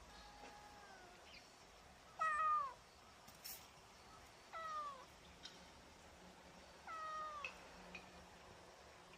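A young, half-grown cat meowing: a faint call near the start, then three clear meows about two seconds apart, each falling in pitch at its end, the first of the three the loudest.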